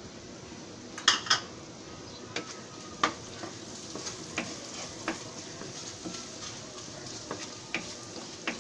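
Wooden spoon stirring cooked prawns in oily masala in a nonstick wok: a steady sizzle from the hot pan with the spoon knocking and scraping against the pan, two sharper knocks about a second in and lighter ones every half second or so after.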